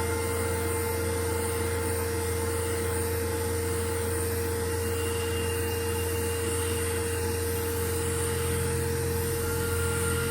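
Steady whirring hum with an even hiss, like a small motor or blower running continuously.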